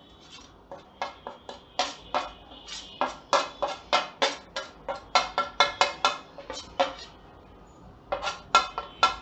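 A steel spoon tapping and scraping against a stainless steel plate as masala powder is pushed off it into a wok: a quick run of ringing metal clinks, about four a second, stopping about seven seconds in and starting again about a second later.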